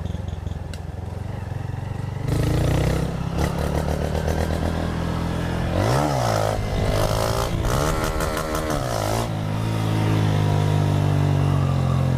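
Motorcycle engine running, getting louder about two seconds in, then revved up and back down twice near the middle.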